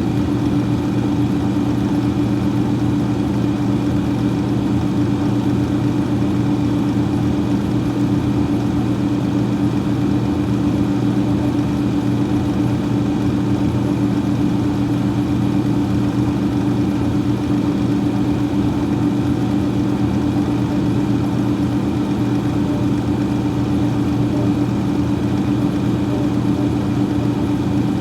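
Freezer fan running, a steady hum with a low, even drone and a whoosh of moving air, unchanging throughout.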